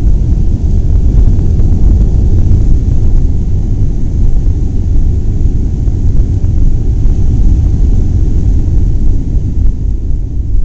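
Loud steady low rumble of airliner cabin noise, with engine and airframe noise heard from inside the cabin at a window seat.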